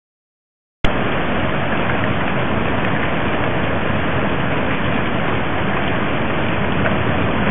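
Steady rushing noise of storm wind and rain, starting abruptly about a second in and holding even.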